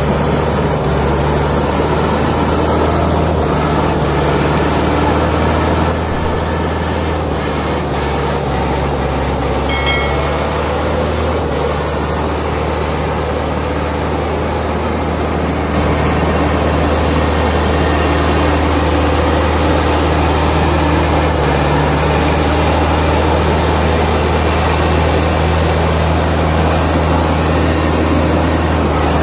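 HMT 5911 tractor's diesel engine running steadily under load as it pulls a trolley heavily loaded with sugarcane, a deep even engine note with small shifts in level. A brief high-pitched tone sounds about ten seconds in.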